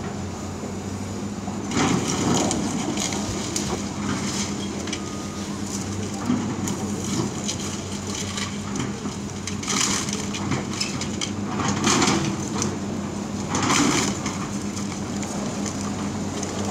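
Demolition excavator tearing down a brick building: brick and timber crunching and crashing, over the steady drone of the excavator's engine. The loudest crashes come about two seconds in and three more times in the second half.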